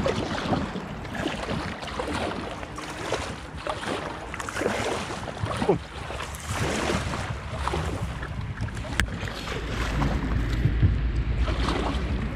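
Kayak paddle blades dipping and splashing in the water in a run of strokes about a second apart, with wind buffeting the microphone, its rumble growing stronger near the end.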